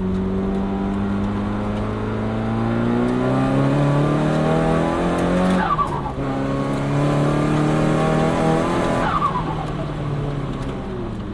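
Turbocharged Nissan Silvia S15 engine with an HKS GTIII RS turbo kit, heard from inside the car while drifting: the engine is held at high revs, its pitch climbing over the first few seconds. Twice, around the middle and again near the end, a short whistle falls in pitch.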